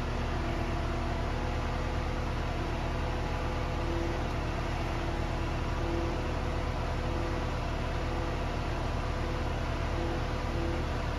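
Steady hum of running machinery, with several constant low tones and an even hiss, plus a faint tone that comes and goes every second or two.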